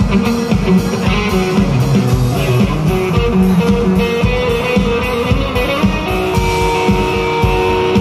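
A rock band plays live through an instrumental passage without vocals. An electric guitar carries held, sustained notes over a steady drum beat.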